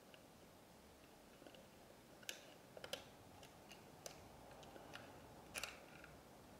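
Faint, scattered clicks and taps of small plastic parts as a Polly Pocket compact is handled and fiddled with, over near-silent room tone.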